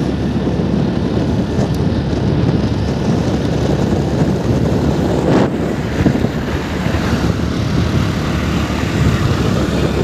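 Wind rushing over the microphone together with road and engine noise from a moving scooter: a steady, dense rumble, with a brief louder whoosh about five and a half seconds in.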